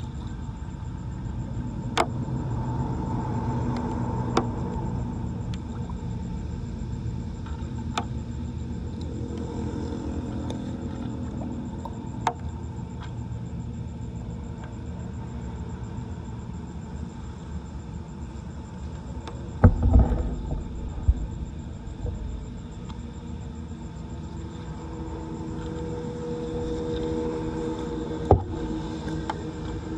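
Floodwater rushing steadily into a storm drain, broken by sharp knocks every few seconds and a heavy thump about two-thirds of the way through.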